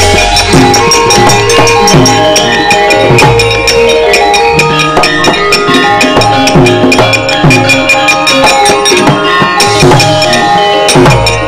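Javanese gamelan accompanying a wayang kulit shadow-puppet scene. Bronze metallophones ring held notes at many pitches, kendang drum strokes slide down in pitch about every second or less, and sharp knocks clatter throughout.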